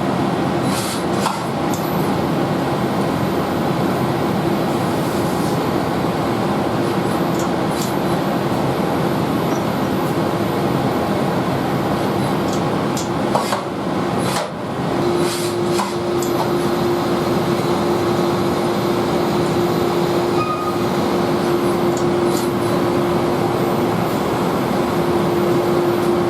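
CNC machining centre running a floating deburring tool holder: steady machine noise with a hum that becomes stronger about halfway through, and a few sharp clicks.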